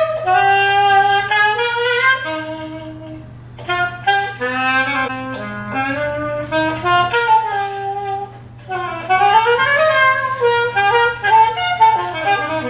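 Solo saxophone melody played through a laptop's speakers: held and sliding notes in phrases, with short breaks about three and a half and eight and a half seconds in.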